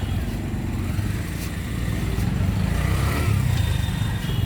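Low engine rumble of street traffic, with a vehicle passing that grows louder from about two and a half seconds in.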